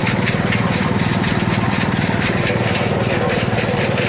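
Motor-driven coconut-husk grinding machine (cocopeat and cocofiber mill) running steadily, with a fast, even, low engine beat and a gritty rasp over it.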